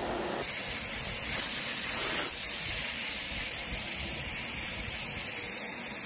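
Karcher VC 3 Premium Plus 1100 W bagless vacuum cleaner running with a steady rush of air. About half a second in, the sound shifts to a thinner, higher hiss.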